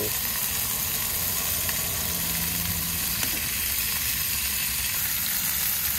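Scallops searing in ghee in a hot frying pan, giving a steady sizzle, with a small tick about three seconds in as tongs turn them.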